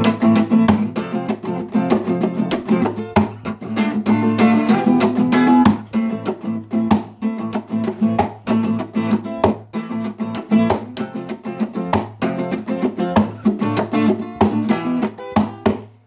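Acoustic guitar strummed in a steady rhythm, chord after chord, dying away at the very end.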